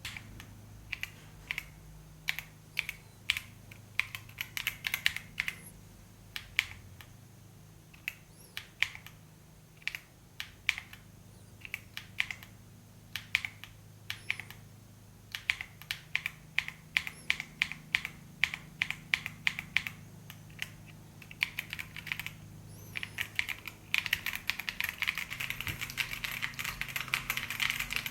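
Keychron Q1 Pro mechanical keyboard with K Pro Banana tactile switches being typed on: scattered single keystrokes and short runs at first, building to fast, continuous typing near the end.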